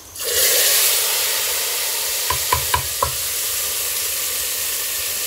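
Hot tadka oil, with fried onion, red chillies, curry leaves and cumin, poured into a pot of lentil dal, hitting it with a loud sizzle that settles into a steady hiss. Four quick metallic taps come about two to three seconds in, and the sound cuts off suddenly at the end.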